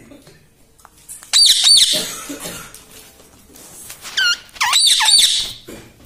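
Indian ringneck parakeet giving shrill squawks with sharp up-and-down pitch sweeps: a pair about a second in, then a cluster of several more around four to five seconds in.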